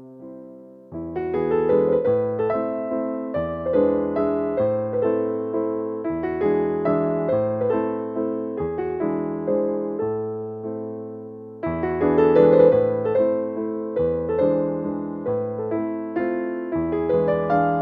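Background music: a gentle electric piano piece with steady chords and a slow bass line, each note struck and fading.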